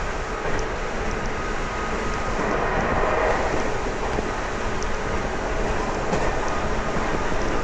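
JR Kyushu 811 series electric train running between stations, heard from inside the car: a steady rumble of wheels on rail and running gear that swells a little a few seconds in.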